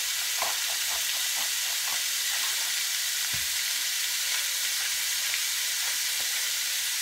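Diced raw chicken frying in coconut oil in a stainless steel pan, sizzling steadily.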